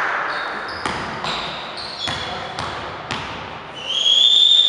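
A basketball bouncing several times on a hardwood gym floor, with the knocks echoing in the hall. Near the end comes a loud high-pitched squeal about a second long.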